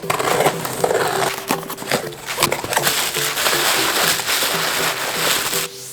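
Plastic wrap and packaging crinkling and rustling under handling as a new phone box is unwrapped, with many small crackles and clicks, easing off just before the end.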